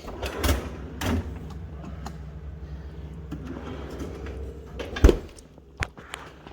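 A GE refrigerator door being handled, with a couple of light knocks early on and a louder thump about five seconds in as it shuts, over a steady low hum.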